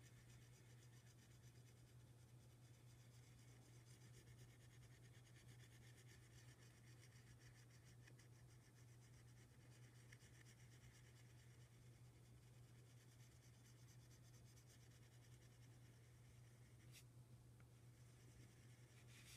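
Very faint scratching of a pyrography pen's hot tip stroked over wood while shading, over a steady low hum. There is a faint click near the end.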